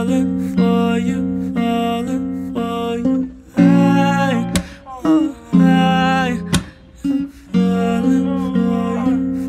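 Background music: strummed guitar chords repeating in a steady rhythm, without vocals.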